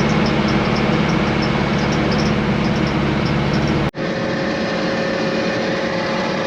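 Heavy farm machinery engine running steadily. About four seconds in it cuts off abruptly and a second, somewhat quieter engine carries on steadily.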